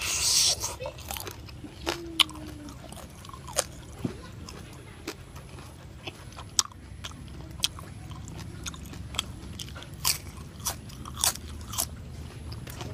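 Close-up biting and chewing of grilled pig head meat: a loud bite at the start, then open-mouthed chewing with sharp crunches and smacks scattered irregularly.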